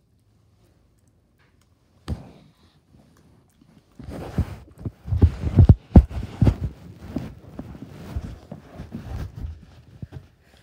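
Phone handling noise: silence at first, a single knock about two seconds in, then from about four seconds on the microphone rubs against clothing with a run of loud, low knocks as the phone is moved about.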